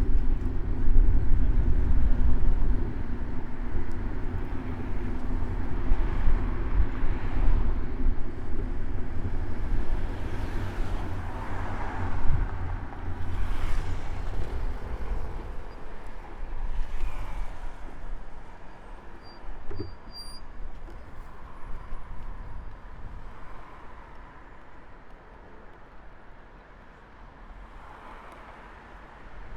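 Urban road traffic heard from a moving bicycle: a motor vehicle's engine rumbles close by for the first half, cars pass in swells, then the traffic thins and grows quieter toward the end.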